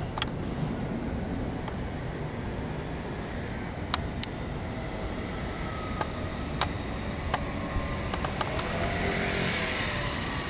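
Outdoor night ambience: a steady high insect trill over a low rumble of distant traffic, with a handful of sharp clicks and a vehicle passing near the end.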